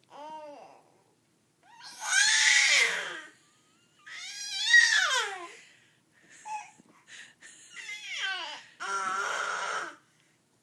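A baby's high-pitched, cat-like squeals and screeches, about five in a row with short gaps, most of them sliding down in pitch. A rougher, raspier cry comes near the end. It is vocal play rather than distress.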